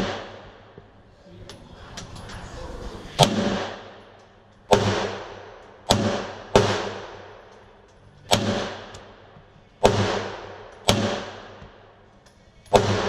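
Glock 17 Gen 4 9mm pistol fired eight times in slow, unevenly spaced shots about one to two seconds apart. Each shot rings on in a short echo under the range roof.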